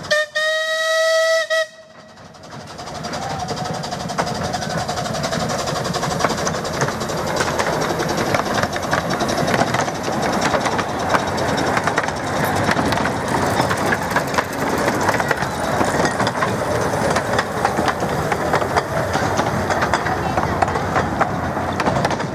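Miniature steam locomotive's whistle blowing once, a steady high tone for about a second and a half. After it, a train running past: an even rumble from the carriages with rapid wheel clicks over the rails.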